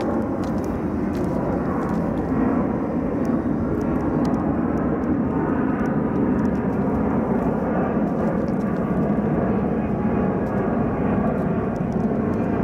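Airliner climbing out overhead after takeoff: a steady, loud, broad rumble that holds through the whole passage.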